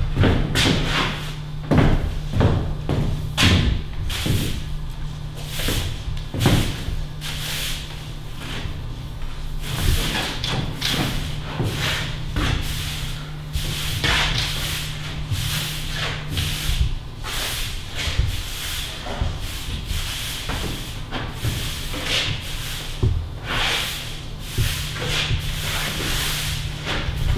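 Broom bristles swept across the floor in repeated brushing strokes, a few per second, with some sharper knocks in the first several seconds, over a low steady hum.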